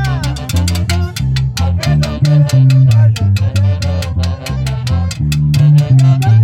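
Latin dance-band music with a prominent stepping bass line and a fast, steady drum and cymbal beat.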